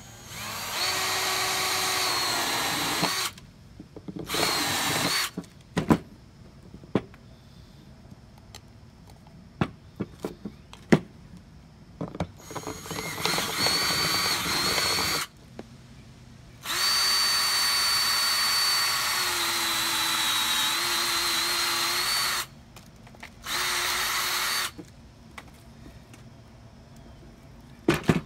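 Cordless drill with a step bit boring holes through a PVC cap, running in five separate bursts of one to six seconds each. In the longest burst the motor's pitch drops slightly as it loads up. Sharp clicks and knocks come between the bursts.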